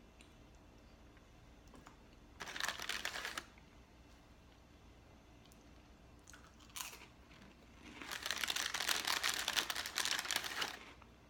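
A plastic sleeve of crackers crinkling as a hand rummages in it. There is a short burst about two and a half seconds in and a longer, louder one of about three seconds near the end.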